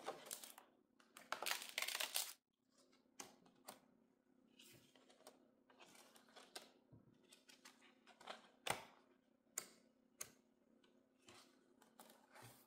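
Cardstock pages of a workbook being turned and handled by hand: two rustling page turns in the first two seconds, then faint scattered paper clicks and rustles.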